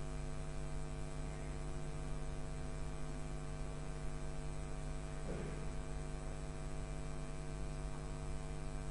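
Steady electrical mains hum, a constant low buzz with many evenly spaced overtones and no break.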